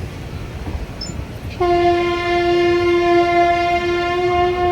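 Train horn blowing one long, steady note that starts about one and a half seconds in, over a low rumble.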